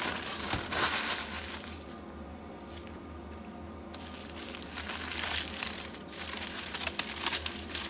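A plastic bag crumpling and rustling for about two seconds, then, after a quieter pause, aluminium foil crinkling as it is unfolded by hand.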